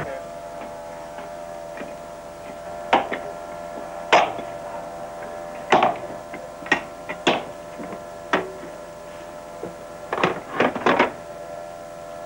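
A steady machine hum with several even tones, broken by sharp knocks or clanks at irregular intervals, a cluster of them near the end.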